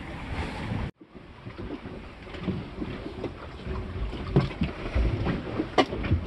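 Low rumble of wind and boat motion inside a small sailboat's cabin, with scattered knocks and clicks. The sound cuts out for an instant about a second in.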